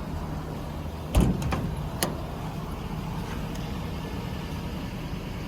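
An engine idling steadily, with a loud thump about a second in and a couple of sharp clicks over the next second.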